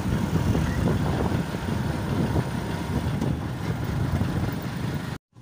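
Car driving along a road: a steady low rumble of engine and road noise that cuts off suddenly near the end.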